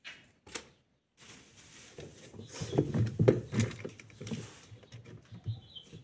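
Hands handling the washing machine's plastic drain valve and drain hose, giving rustling with many small plastic clicks and knocks, loudest in the middle. A single click comes about half a second in.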